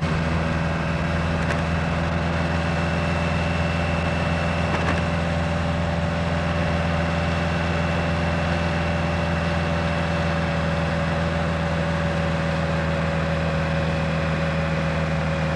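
Motorcycle engine running at a steady cruising speed: an even, unchanging engine drone with no gear changes or revving.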